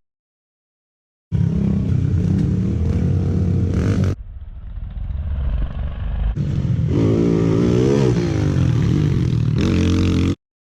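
Small single-cylinder four-stroke pit bike engines running and revving under riding, in abrupt edited segments. It starts after about a second of silence, cuts off suddenly about four seconds in, and comes back quieter and building. It then runs loud with the revs rising and falling, and cuts off just before the end.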